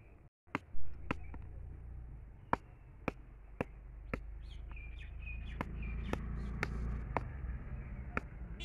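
A hard-shelled ripe bael fruit struck again and again against brick steps to crack it open: sharp knocks about two a second, the loudest about a second in.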